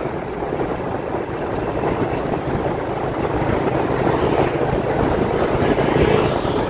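A vehicle's engine running steadily while travelling, with wind blowing across the microphone.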